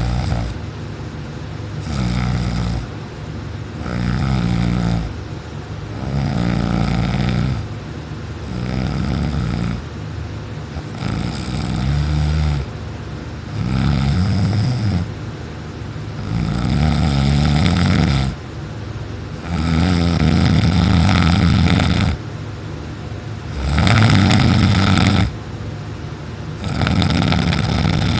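A person snoring loudly, asleep on her back with her mouth open, about ten rasping snores in a steady rhythm, one every two to three seconds.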